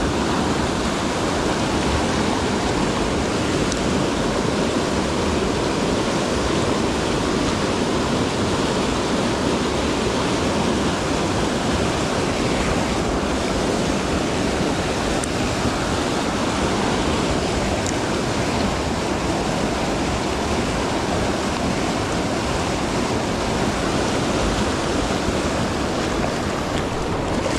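Rushing river water: a fast trout-stream current making a steady, even roar of flowing water.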